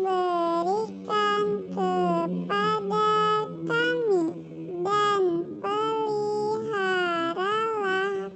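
High-pitched, pitch-shifted cartoon-cat voice in the style of Talking Tom, chanting a prayer in a sing-song run of syllables with gliding pitch. A steady low hum sits underneath.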